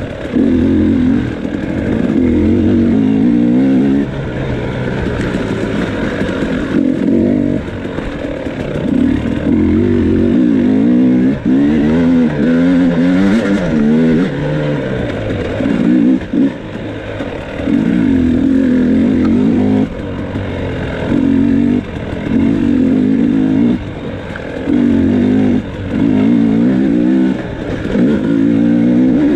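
2018 KTM 300XC's 300 cc two-stroke single-cylinder engine, through a stock pipe and an FMF Turbine Core 2.1 silencer, revving up and down over and over as the throttle is opened in bursts and rolled off while the enduro bike is ridden along a woods trail.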